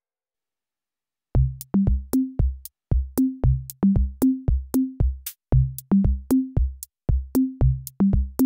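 Background music: an electronic drum-machine beat of short, clicky, pitched bass notes, about three a second, starting about a second in.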